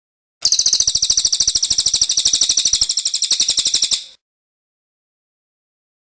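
A small songbird's rapid, high-pitched trill: an even run of about fourteen notes a second for nearly four seconds, which then stops abruptly.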